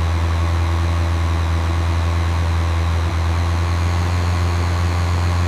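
Cartoon tractor engine sound effect running steadily under way, a loud, even low drone.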